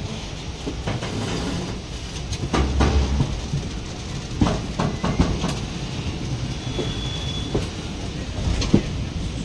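Passenger train running along the track, heard from aboard: a steady rumble with irregular clacks and knocks of the wheels over the rails.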